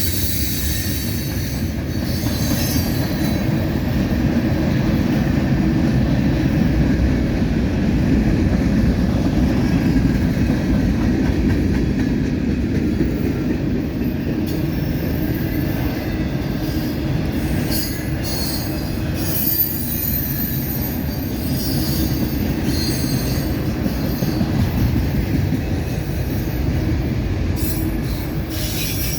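Freight cars of a CSX mixed manifest train rolling past, a steady rumble of steel wheels on the rails, with short high-pitched wheel squeals now and then.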